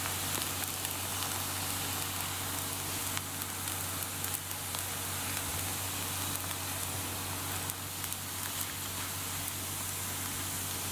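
Thin oiled dough discs frying on a hot pan: a steady soft sizzle with faint scattered crackles, over a low steady hum.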